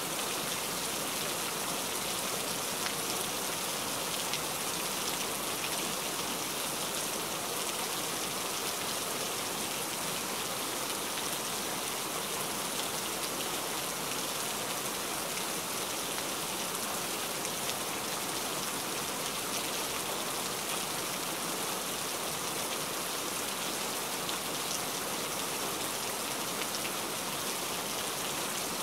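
Heavy rain falling steadily: a dense, even hiss of countless drops.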